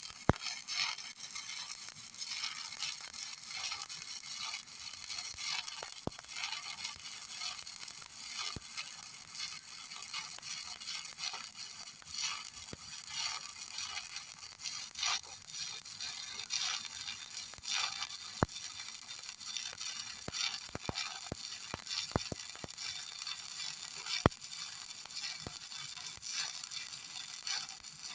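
Stick (electric arc) welding: the arc crackles and sizzles steadily, with frequent sharp pops, as an electrode burns along a vertical joint.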